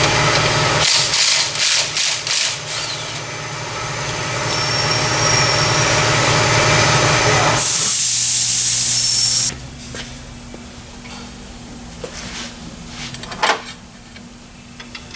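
Shop work on an engine: a tool runs steadily with several sharp knocks in the first few seconds. A loud hiss of about two seconds follows near the middle, then quieter light clinks.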